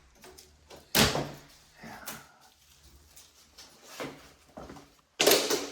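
Hammer knocking and prying at a drywall corner bead to pull it off: one sharp knock about a second in, a few faint taps, and a loud half-second rasp near the end as the bead is worked loose.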